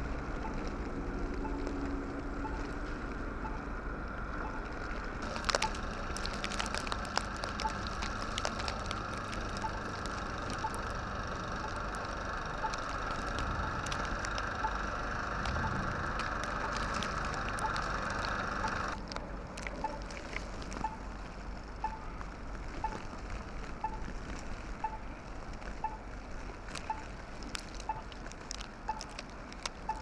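Two-stage snowblower running as it clears deep snow, with many sharp clicks over its steady engine noise; it cuts off suddenly about two-thirds of the way through. Wind rumbles across the microphone throughout.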